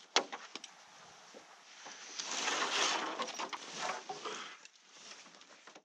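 Sharp clicks of plastic buckles and straps being fastened on a wooden canoe yoke, followed by a longer rustle of a fabric pack being pushed and stuffed into the canoe.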